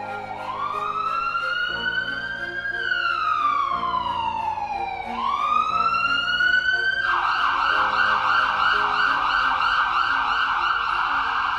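Emergency siren wailing: the pitch slowly falls and rises twice, each sweep taking about two and a half seconds. About seven seconds in it switches to a fast yelp that warbles up and down several times a second.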